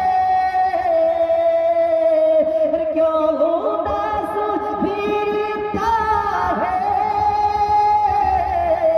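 A man singing a naat through a microphone and loudspeakers, holding long notes that bend and waver.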